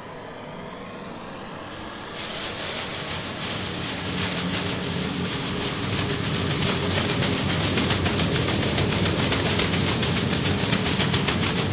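A gold foil emergency blanket shaken and crinkled as a home-made sound effect for a spacecraft's fiery entry into the Martian atmosphere: a dense crackling rush that starts about two seconds in and builds steadily louder.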